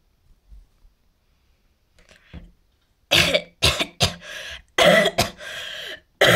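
A person coughing, a run of several hard coughs starting about halfway through, voicing a character who is sick.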